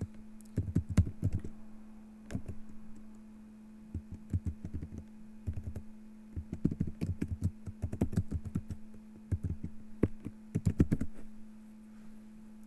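Typing on a computer keyboard in irregular bursts of keystrokes, stopping about a second before the end, over a steady low electrical hum.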